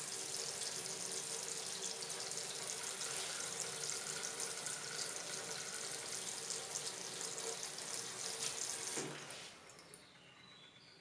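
Kitchen tap running into a water-filled stainless-steel sink, a steady splashing stream with a faint steady hum under it, shut off about nine seconds in.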